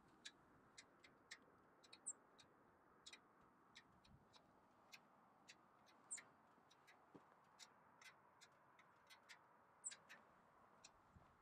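Near silence: faint scattered ticks, about two a second, with a few brief high chirps.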